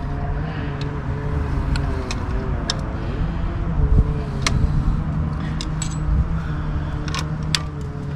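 Small metal clicks and clinks from a nut and bolt being fitted by hand through an aluminum panel, a dozen or so sharp ticks scattered irregularly over a steady low hum.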